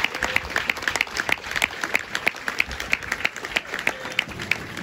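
Crowd applauding, with a few close claps standing out sharply, several a second.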